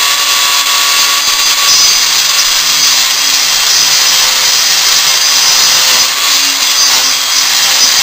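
Ryobi rotary tool running at speed with a 1-inch abrasive cut-off wheel, grinding a slit lengthwise along the tube that holds a sand core, cutting down until it reaches the sand. A loud, steady high-pitched grinding whine.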